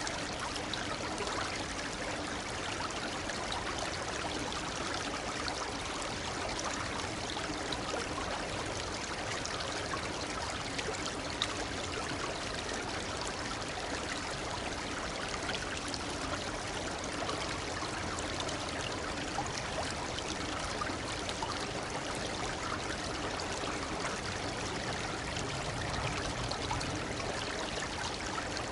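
Shallow babbling brook running steadily: a continuous, even rush of water with fine trickling and splashing all through.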